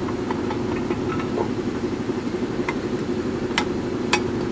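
A steady low motor hum throughout, with a few sharp metallic clicks about three and a half and four seconds in as a small steel padlock is handled and snapped shut through the cast-iron vending machine base's tab.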